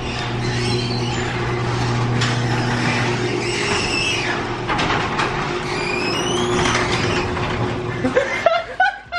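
Electric garage door opener running with a steady hum as the sectional garage door rolls up; it cuts off about eight seconds in, when the door is fully open.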